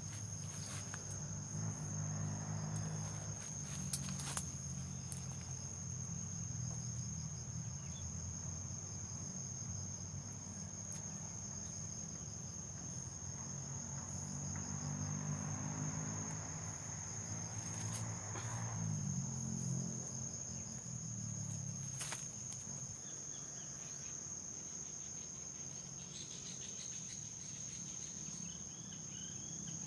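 Insects chirring in a steady high-pitched drone, over a low rumble, with a few sharp knocks.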